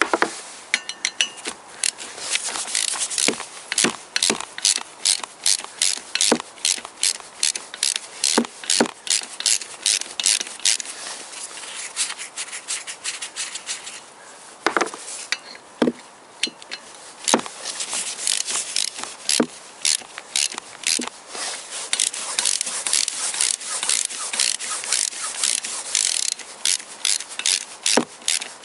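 Quick runs of clicking and rasping as flywheel bolts, their threads coated in thread-locking glue, are wound out of the crankshaft with a wrench; there is a short pause about halfway through.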